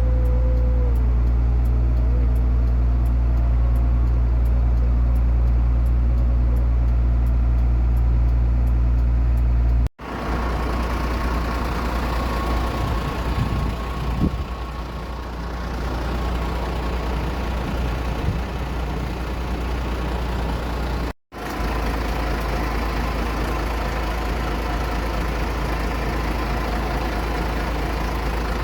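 Aircraft engine running steadily on the ground, a constant drone with a steady whine over it for a few seconds. The sound cuts off abruptly twice, about ten seconds in and again past the twenty-second mark.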